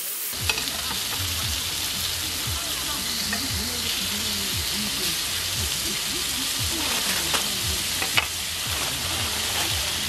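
Strips of raw pork belly sizzling on a hot grill plate over a portable burner, a steady hiss of frying fat. A few sharp clicks of metal tongs come through, about half a second in and twice near the end.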